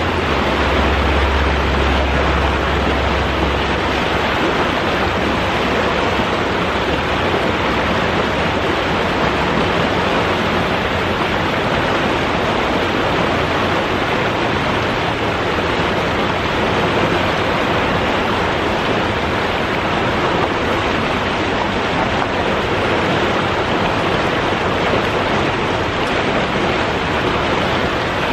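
River water rushing over rocks in small rapids: a steady, loud rush of water. A low rumble sits under it for the first few seconds and then drops away.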